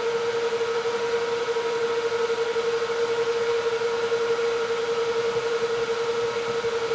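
A steady hum held at one pitch, with a faint hiss beneath it.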